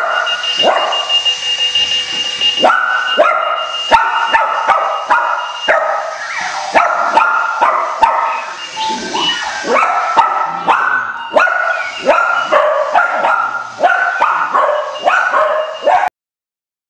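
Clocky runaway alarm clock sounding its alarm: a rapid, random string of electronic beeps and chirps that jump abruptly between pitches, with a few sharp knocks. It cuts off suddenly near the end.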